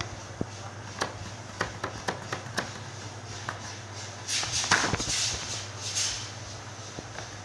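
Brown paper shopping bag crackling and rustling as a cat moves and settles inside it: a few light crackles and taps, then a louder rustle of about two seconds just past the middle. A low steady hum runs underneath.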